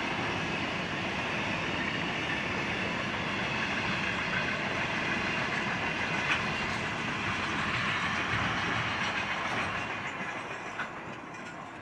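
The tail end of a long freight train of steel wagons and container wagons rolling on the rails, a steady rolling rail noise with a faint high metallic ring and a few clacks. It fades away over the last couple of seconds as the final wagons pass.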